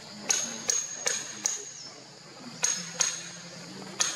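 A run of sharp clinks, each with a short high ringing: four in quick succession about 0.4 s apart, then two more after a pause, and one near the end, over a faint low steady hum.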